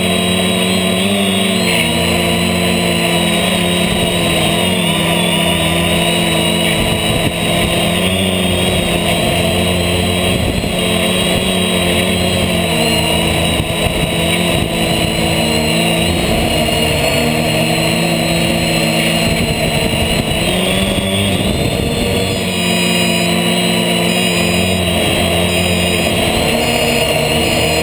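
HobbyKing H550 hexacopter's electric motors and propellers whining, heard from a GoPro on its own frame. The hum wavers slightly in pitch as the motors speed up and slow down, with a gusty rumble underneath through the middle stretch.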